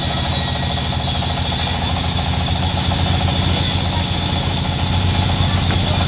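Large sawmill band saw rig running steadily: a low, fast-pulsing drone with a steady high hiss over it.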